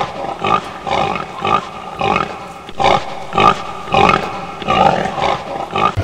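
Pig grunting over and over in a steady rhythm, a little under two grunts a second.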